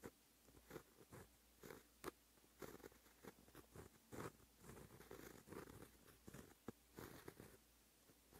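Pen writing Japanese characters in white ink on black paper: faint, irregular scratching strokes of the nib on the paper, a few each second, close-miked.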